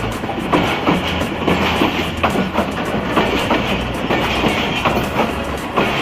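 Passing train, its wheels clattering over the rail joints in a run of clicks, several a second, over a steady rumble.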